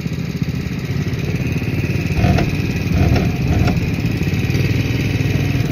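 A small engine running with a continuous low rumble, growing a little louder about two seconds in.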